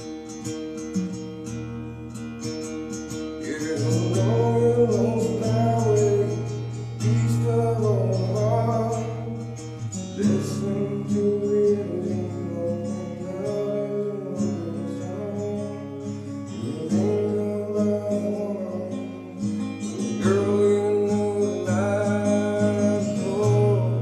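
Acoustic guitar strummed, with a man singing over it from about four seconds in, in several phrases. The voice is fed through a vocal effects pedal.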